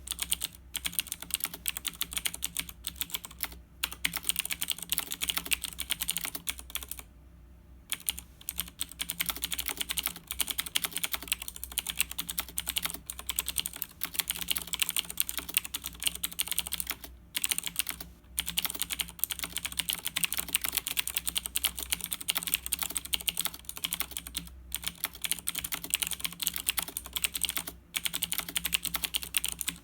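Fast, continuous typing on a Razer BlackWidow 2013 mechanical keyboard, a steady rattle of key clicks that stops for about a second roughly a quarter of the way in.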